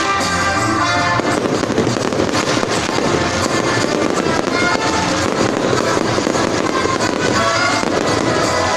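Fireworks display with music: from about a second in, a dense, continuous crackling of many small bursts covers the music, which is heard clearly only at the start.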